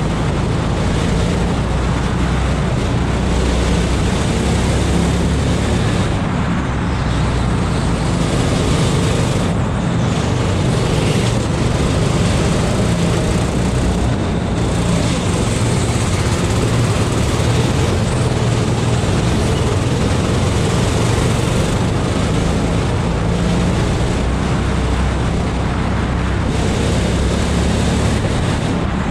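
Kart engine running hard at racing speed, recorded by a camera mounted on the kart.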